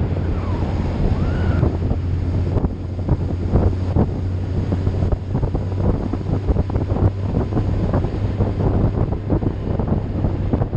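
Wind buffeting the microphone of a moving vehicle over a steady low engine drone.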